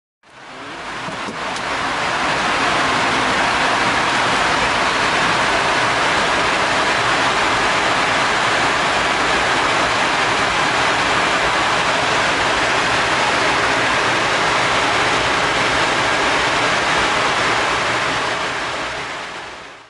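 Steady rushing cabin noise on the flight deck of an Embraer ERJ145 in cruise at 36,000 ft, mostly airflow over the cockpit, with no distinct engine tone. It fades in over the first second or two and fades out near the end.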